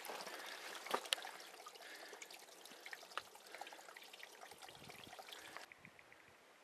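Water trickling and dripping down a rock gully, with a few sharp clicks about a second in. The hiss drops away abruptly near the end.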